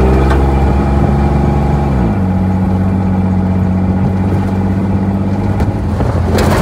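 Willys pickup's engine running on the move: a steady drone that drops in pitch about two seconds in, then holds steady. A brief rushing noise comes near the end.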